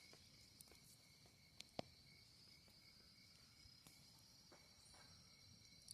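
Faint, steady, high-pitched chorus of night insects, with a few sharp clicks at about two seconds in.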